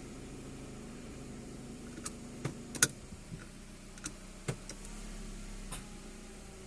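Nissan Rogue/X-Trail idling with a steady hum, then a run of sharp metallic clicks from the drivetrain, about eight spread over a few seconds, as the transmission is put into D or R. The owner traces these clicks to front hub nuts that need tightening on both sides, not to a transmission or drive fault.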